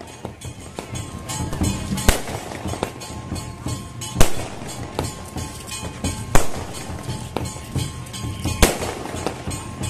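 Aerial fireworks bursting overhead: four loud bangs about two seconds apart, with smaller crackles in between. Music plays underneath.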